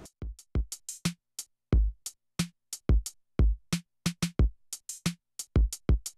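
A drum-machine beat of kicks and sharp hits in an uneven rhythm, with short silences between the strokes and no melody.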